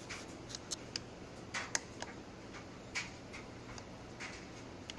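Buttons on a FrSky Taranis Plus radio transmitter clicking as they are pressed to page through its menus: about a dozen short, irregular clicks, some in quick pairs.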